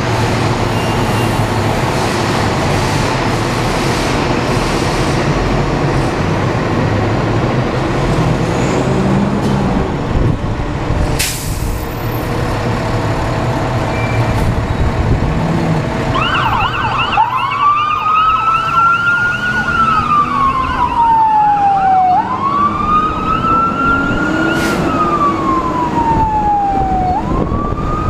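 Fire engine pulling out and accelerating, its engine running loudly; about halfway through a siren starts wailing, sweeping slowly up and down in pitch about every five and a half seconds.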